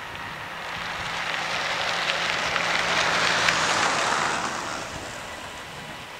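Vehicle noise, a rushing sound that swells to a peak about three seconds in and fades away by about five seconds, over a faint low hum.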